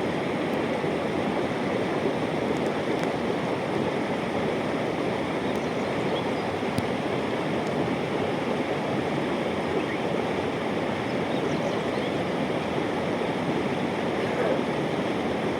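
Rushing river water: a steady, unbroken rush of flowing water.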